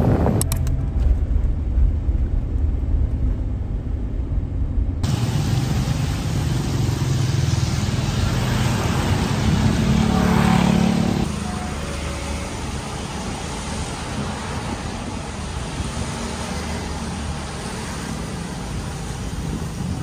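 Wind buffeting the microphone over surf for the first few seconds. Then street traffic: a car swishes past on a wet road about ten seconds in, and quieter traffic noise follows.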